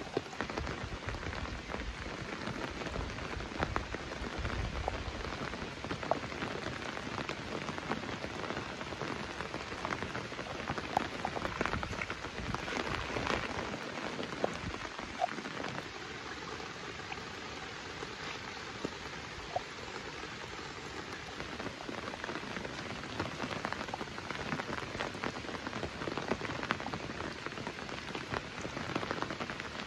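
Steady rain falling, an even hiss scattered with many small, sharp drop ticks.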